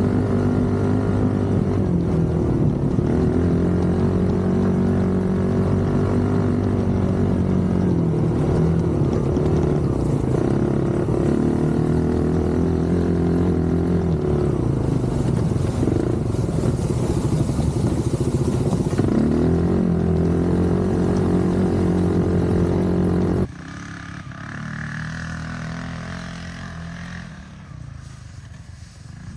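Polaris RZR 170's freshly rebuilt single-cylinder four-stroke engine running under load as the small side-by-side is driven, heard close up from on board, its pitch rising and falling with the throttle. About 23 seconds in it drops to a fainter, more distant engine sound.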